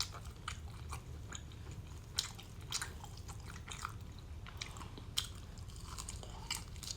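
Close-up chewing of steak with wet mouth smacking: many short, irregular clicks and smacks. The meat is gummy and takes a long time to chew.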